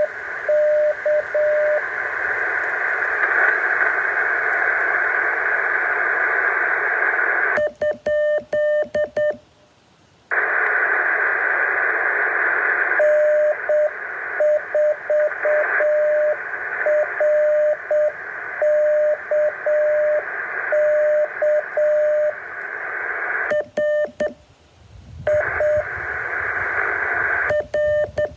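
Morse code heard on a radio receiver: a single mid-pitched tone keyed on and off in dots and dashes over a steady bed of receiver hiss. The hiss drops out twice, about eight and twenty-four seconds in, leaving the keyed tone sounding harsher and clipped.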